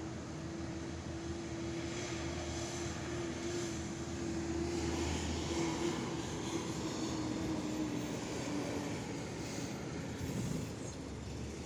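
A steady engine drone passing by, one held tone over a low hum. It swells in the middle, then drops slightly in pitch and fades out about nine seconds in.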